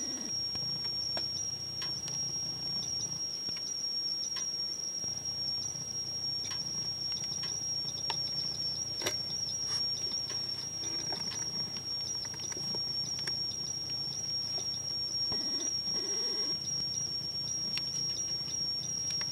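A steady high-pitched whine with scattered faint clicks and ticks over a low hum.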